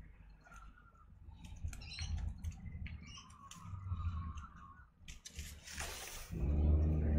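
Adhesive tape being handled and pulled off its roll: small clicks and a thin squeak, then a short tearing rasp about six seconds in. Just after that a loud low droning hum starts.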